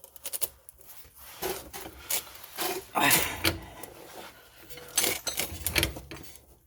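A ratchet with a cheater bar turning a tie rod end puller gives irregular metal clicks, knocks and scrapes as the tool is tightened to press the tapered tie rod end stud out of the steering knuckle.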